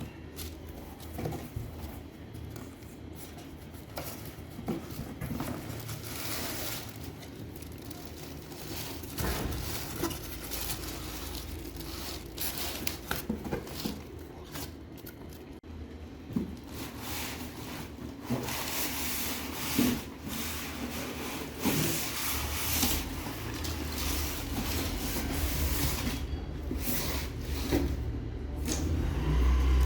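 Handling noise: irregular rubbing and scraping with scattered knocks, as of packaging or parts being handled. A low rumble grows stronger in the last few seconds.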